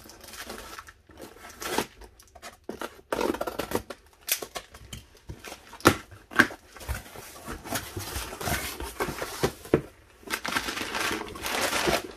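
Cardboard shipping box being opened by hand: packing tape tearing, cardboard flaps scraping and clicking as they are pulled open, and crumpled kraft packing paper rustling near the end.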